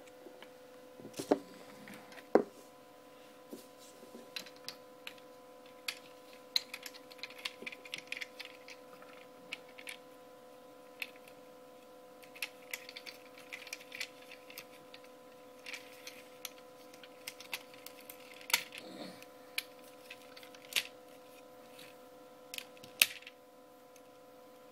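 Irregular plastic clicks and knocks of a large Transformers Dark of the Moon Ultimate Optimus Prime toy being handled, its parts moved and clicked into place, with a few louder snaps. A steady hum runs underneath.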